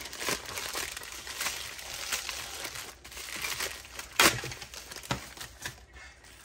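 Thin black plastic bag crinkling and rustling as hands unwrap a Funko Soda vinyl figure, with one sharp, louder crackle about four seconds in; the plastic sound thins out near the end as the bubble-wrapped figure comes free.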